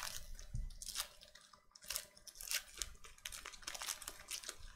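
Foil wrapper of a trading card pack crinkling and tearing as it is opened by hand, a run of sharp, irregular crackles.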